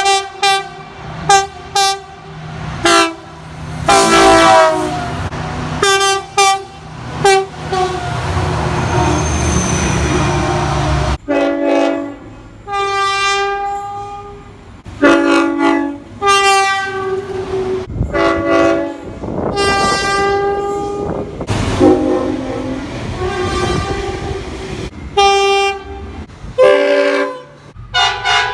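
Train horns sounding a series of short toots and longer blasts, with several different horns in quick succession. Partway through, a train's wheels clatter over the rails for a few seconds before an abrupt cut to the next horn.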